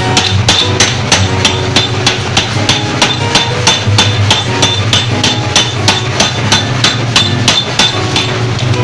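Mechanical forging power hammer striking hot metal in a fast, even rhythm of about four to five blows a second, each blow ringing, over a steady low machine hum.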